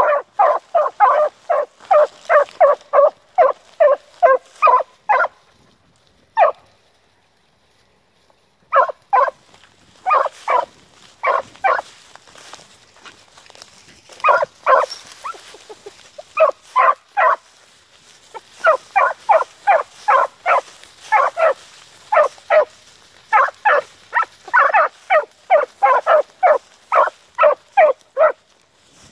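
Two young beagle hounds giving tongue as they run a marsh rabbit's scent line: strings of short, rapid barks, about three a second. The barking breaks off briefly several times, with a longer silent check a quarter of the way through.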